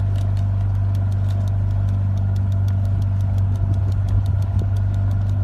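A loud, steady low machine hum with faint, evenly spaced ticks.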